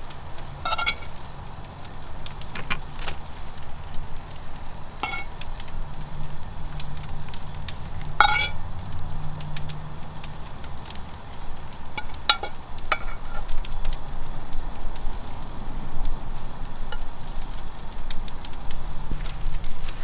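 A metal spoon scraping and clinking against a saucepan a handful of times as thick curry filling is spooned out, over a steady low hum.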